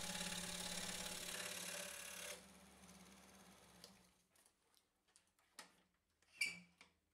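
Excalibur scroll saw running with a steady reciprocating hum as its blade cuts thin hardwood. It is switched off about two and a half seconds in and its hum dies away over the next second or so. A few light knocks follow near the end as the workpiece is handled on the saw table.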